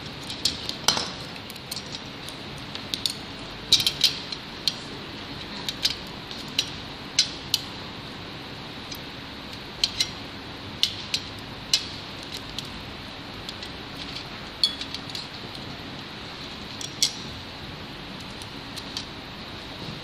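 Small metal parts clicking and clinking as aluminium fittings, screws and a screwdriver are handled on a carbon-fibre frame during assembly: sharp, irregular clicks scattered throughout, over a steady low background hum.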